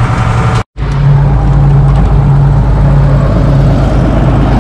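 Case Agri King tractor engine running steadily. The sound drops out for an instant under a second in, then comes back slightly louder with a heavier low rumble.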